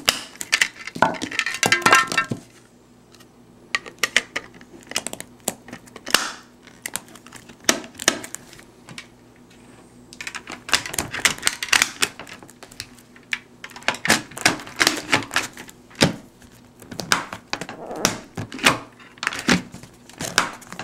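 Irregular plastic clicks, taps and knocks from hands working an Arai helmet's shield side pods and face shield, pressing the pods down to latch and snapping parts into place.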